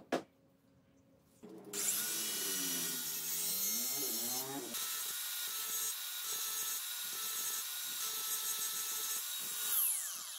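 Greenworks cordless angle grinder switched on about a second and a half in and running with no load, a steady high whine. Its motor spins down near the end, the whine falling in pitch.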